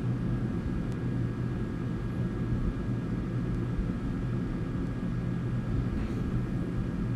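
Steady low background rumble with a faint, steady high hum.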